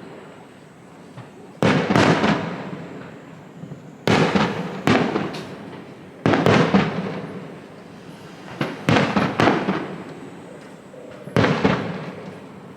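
Aerial firework shells bursting: five sudden booms spaced about two to three seconds apart, most followed quickly by one or two further bursts, each dying away over a second or two.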